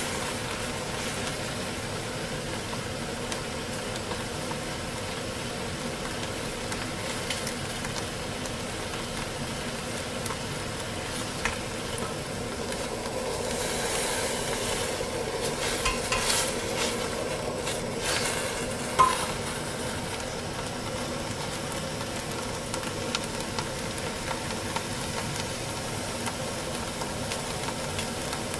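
Food sizzling in a small stainless steel pot over a camp stove flame, stirred with a utensil that scrapes and clinks against the pot, over a steady hiss. A few sharp clinks come between about sixteen and nineteen seconds in, the loudest near nineteen seconds.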